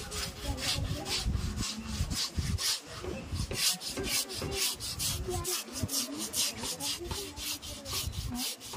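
A hand-held scrubber rasping rhythmically over an elephant's wet, rough hide, about three to four strokes a second, as the animal is scrubbed down while it lies in the water.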